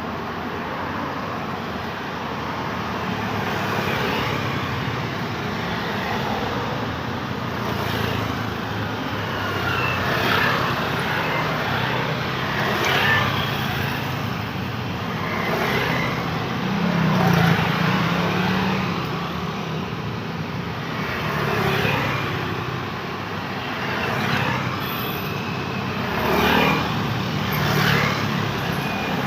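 Road traffic: cars and motorcycles passing one after another over a steady roar, each swelling and fading every few seconds, with one engine hum standing out about halfway through.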